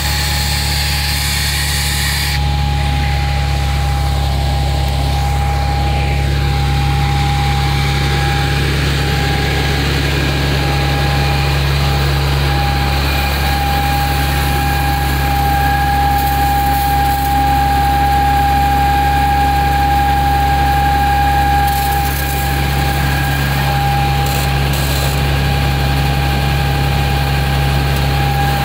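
Fire truck engine running at a steady speed to drive its pump, with a steady high whine over the low engine hum. A hiss of spraying water drops away about two seconds in.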